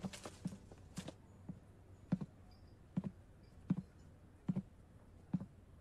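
Slow, even footsteps, a little more than one step a second, with a few extra steps close together in the first second.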